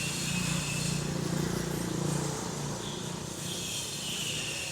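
A motor vehicle's engine running as it passes on the street, loudest for the first two seconds and then fading, over steady street background noise.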